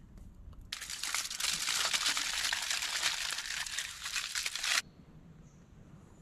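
Aluminium foil crinkling and crackling as it is scrunched by hand around a food parcel, for about four seconds, stopping abruptly.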